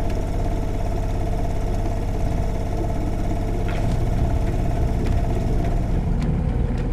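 Small boat's outboard motor running steadily, a constant low engine hum.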